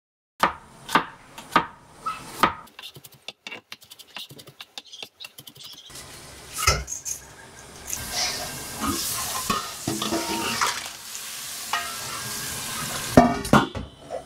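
Kitchen cookware sounds: clams handled in a stainless steel bowl give four sharp clinks of shell on metal, then a quick light rattle. On the gas stove there is a clank, a steady hiss for several seconds, and a couple of loud clanks near the end as pots and pans are moved.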